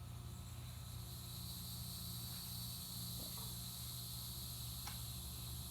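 Steady low electrical hum with a constant high hiss, with two or three faint soft ticks past the middle.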